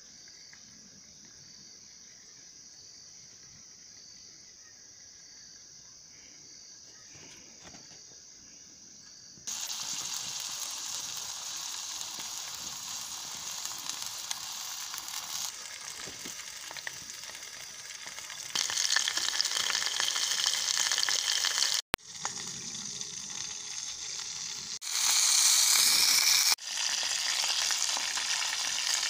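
Faint background for the first third, then, from an abrupt cut, a steady sizzling hiss of food cooking in aluminium pots over a small camp stove. The hiss jumps louder and quieter several times, and near the end a wooden spoon stirs a pot of soup.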